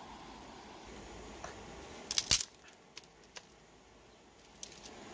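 Dry sticks being handled and laid on gravel: a loud clatter of wood about two seconds in, followed by a few lighter clicks.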